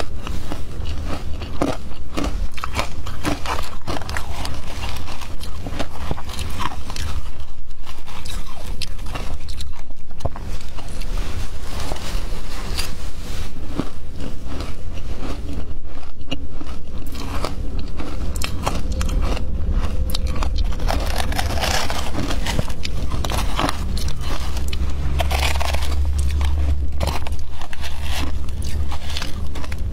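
Close-up crunching and chewing of shaved ice coated in milk powder: many crisp crunches in quick succession, with a metal spoon scraping the plastic bowl.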